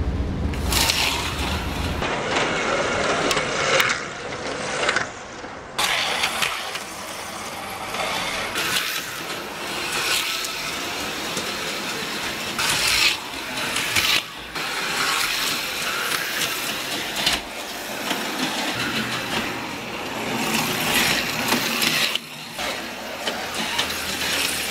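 HO-scale AFX slot cars running laps: the whirr of their small electric motors and wheels on the plastic track swells several times as the cars come past and fades between passes.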